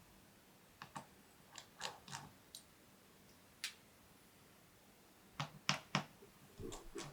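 Scattered light clicks and taps of a small screwdriver and tiny screws against a laptop's metal display frame as the panel screws are removed. The clicks come singly at first, then a louder cluster of three a little past halfway, then a short rattle near the end.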